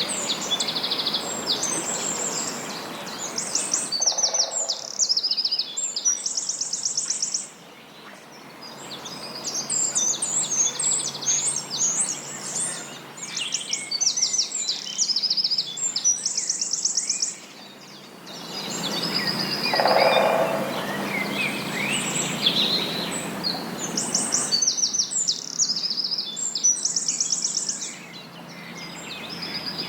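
Several songbirds singing and calling over one another, with a fast, high trill that comes back about every ten seconds. A low wash of background noise swells for several seconds in the middle.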